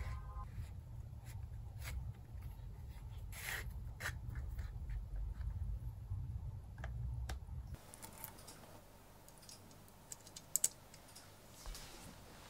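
Leather being handled: a stitched bridle-leather key case squeezed and its key strap slid in and out, light rubbing with scattered small clicks over a low steady hum. After a cut it is quieter, with two sharp clicks close together about two-thirds of the way through.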